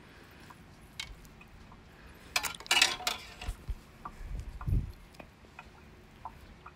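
Kitchenware being handled: light clinks and scrapes on a metal pan and bowl, with a couple of brief scrapes about two and a half seconds in and a soft thump near five seconds, as sticky oat mixture is worked by hand.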